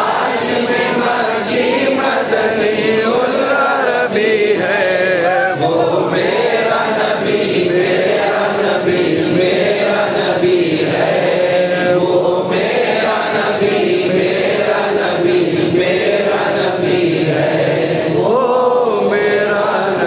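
A man's voice chanting an Urdu naat, a devotional poem in praise of the Prophet, in long melodic phrases with held, wavering notes.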